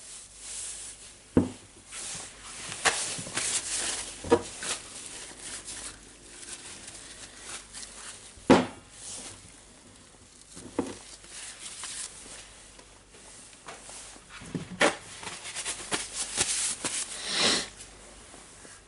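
Hand work on rotary hammer drill parts: irregular knocks and clicks of metal and plastic pieces being handled and set down, with two spells of scraping or brushing.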